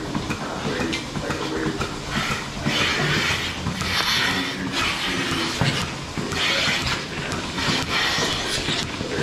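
Milking machine running in a milking parlour, a steady mechanical clatter, with several bursts of hissing air as teat-cup clusters are put onto cows' udders under vacuum.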